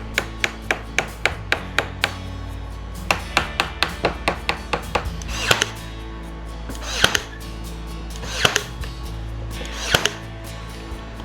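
Rapid hammer-like taps, about three to four a second, then five heavier strikes spaced about a second and a half apart, from work with a tool on the wooden cabinet, over background music.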